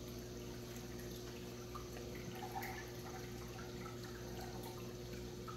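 Water in a large aquarium bubbling and trickling at the surface, with small scattered drips, over a steady hum from the tank's pumps.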